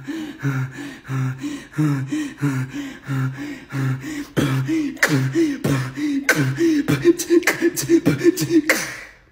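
Human beatboxing: a steady rhythm of low hummed bass notes and pitched vocal notes, about three beats a second. Sharp clicks join in from about halfway, and it stops just before the end.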